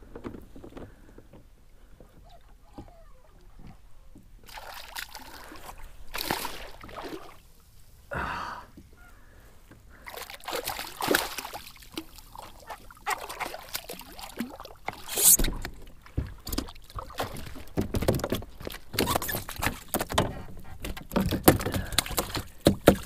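A small cobia splashing at the water's surface beside a kayak as it is brought in by hand, with irregular knocks and rustles of handling on the kayak hull. Quiet at first; the splashing and knocking start a few seconds in and grow busier in the second half.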